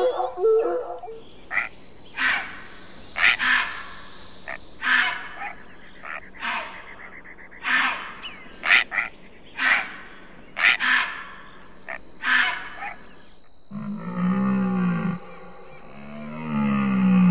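A series of short, sharp animal calls, roughly one a second, then an abrupt change near the end to a different animal's lower, drawn-out calls that rise and fall in pitch.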